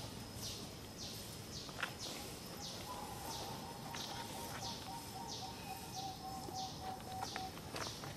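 Outdoor wildlife ambience: a high, raspy call that falls in pitch, repeated about twice a second, from an unseen insect or bird. A faint steady whistle-like tone runs through the middle, with a few light clicks.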